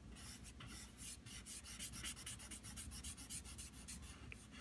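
Stick of charcoal scratching across drawing paper in quick, faint back-and-forth shading strokes.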